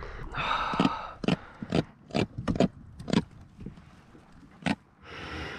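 A freshly landed jack crevalle thrashing on a fishing kayak: a string of sharp, irregular knocks and thuds, about eight in a few seconds, with a short rushing noise near the start and again at the end.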